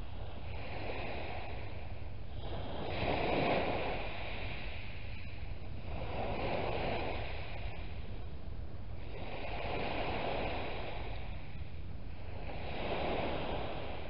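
Small waves breaking and washing up a shingle beach in surges about every three seconds, over a steady low rumble.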